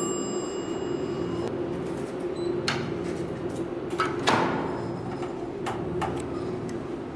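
A glass office door pulled open by its metal bar handle, with a knock and a short ringing clunk about four seconds in, among a few scattered steps and clicks over a steady room hum. A steady high tone stops about a second and a half in.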